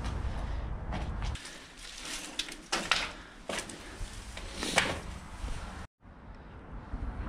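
Low wind rumble on the microphone, then several sharp crunching knocks and scrapes, like footsteps and handling noise on rubble; the sound cuts out briefly about six seconds in.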